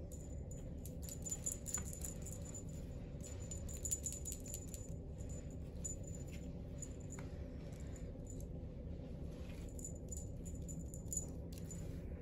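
Light, irregular crinkling and rattling of cat toys, a foil crinkle ball and a feather wand, as kittens bat at them, heard as scattered faint clicks over a low steady room hum.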